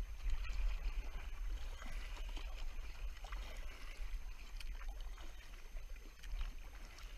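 Double-bladed kayak paddle dipping and pulling through calm river water, with water dripping and trickling off the blades and small knocks, over a steady low rumble.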